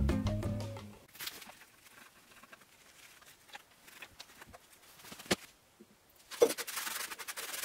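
Background music fades out within the first second. Then come faint handling clicks and taps, one sharper click past the middle, and a short rustling, scraping rub near the end.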